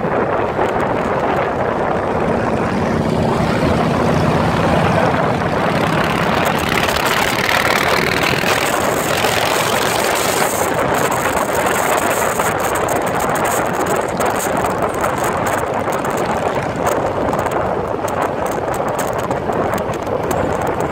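Wind rushing over the microphone of a moving vehicle, steady throughout, with motorcycle engines running underneath; a low engine tone stands out for a few seconds about two seconds in.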